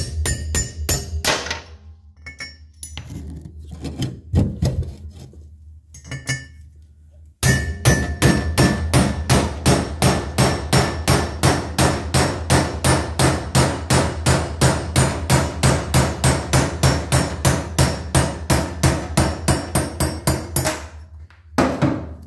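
Hammer blows on a steel guide driver, driving worn cast-iron exhaust valve guides out of a Subaru EJ25 single-overhead-cam aluminium cylinder head; each strike rings with a metallic clink. A quick run of blows at the start and a few scattered knocks lead into a long, steady run of strikes at about four a second from about seven seconds in until near the end.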